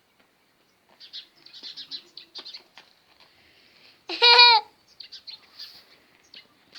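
An Indian peafowl (peacock) gives one loud call about four seconds in, lasting about half a second, rising at the start and dropping at the end, with smaller birds chirping high around it.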